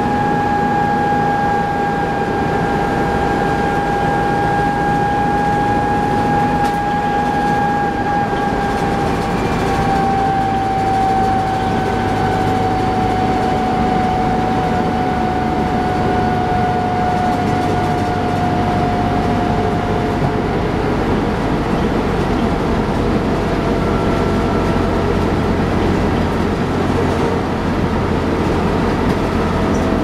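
A 1994 TMC RTS transit bus with a Detroit Diesel Series 50 engine and Allison transmission under way, heard from inside the passenger cabin: a steady drivetrain rumble and road noise with a high whine that slowly drops in pitch over the first twenty seconds and fades, a lower whine coming in near the end.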